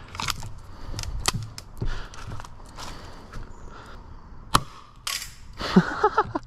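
Clicks of a King Arms 120-round 40mm green-gas grenade shell being seated in a pistol-style airsoft grenade launcher, then a single sharp shot about four and a half seconds in. A burst of rattling noise follows as the load of BBs lands.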